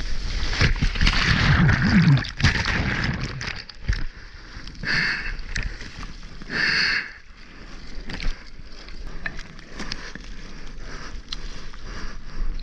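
Ocean water rushing and splashing around a mouth-mounted camera as a bodyboarder rides through a barreling shorebreak wave and its whitewater. It is loudest for the first two seconds or so, then drops to lighter sloshing and churning.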